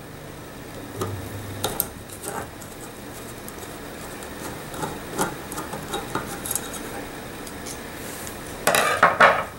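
A screwdriver working a small screw out of a Westernfield .22 bolt-action rifle's trigger group, with light scattered metal clicks and scrapes. Near the end comes a louder burst of metal clatter as the parts are handled.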